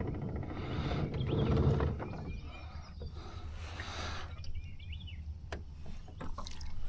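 Birds chirping in short calls, over a low steady rumble that swells about a second and a half in and then eases off. A few sharp clicks come near the end.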